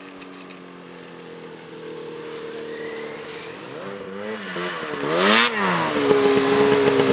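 Snowmobile engine running steadily, then revved up and back down twice in deep snow, with a brief rush of noise at the second rev. It is louder and steady after that.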